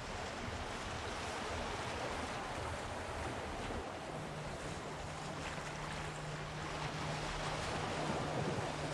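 Steady rush of wind and lake water heard from aboard a boat on the move, with a low steady hum joining about four seconds in.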